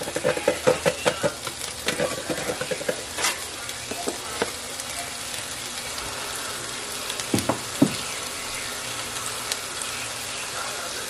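Chicken sizzling in a nonstick frying pan, a steady hiss, with a run of quick rattling taps in the first three seconds and two sharper knocks a little past halfway.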